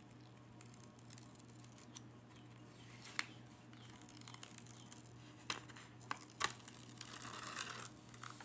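Handling noises from a diamond painting canvas: scattered light clicks and taps, with a crinkly rustle of plastic film a little past the middle.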